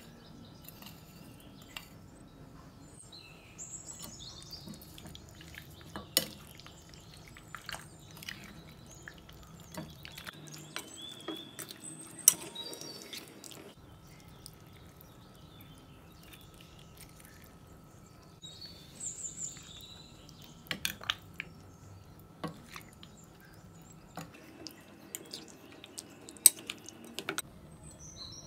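Metal spoon clinking, tapping and scraping against a glass mixing bowl and a small plate while chicken is seasoned and mixed in a yogurt marinade. The clinks come at scattered moments, sharpest a few times through, over a faint background.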